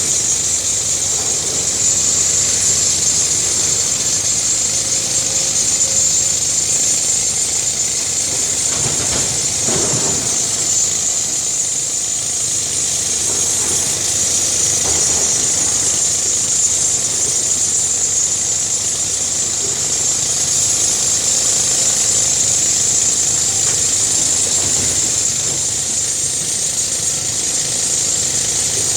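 Case excavator's diesel engine running steadily under work, with a constant high hiss over the engine noise.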